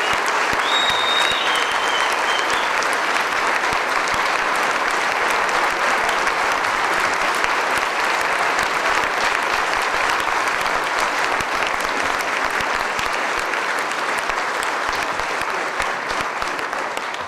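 Banquet audience applauding steadily, dying away at the end.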